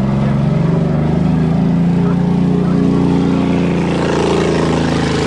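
Wrecked Buick's 3.8-litre V6 running at a steady speed. A hiss builds up over it near the end.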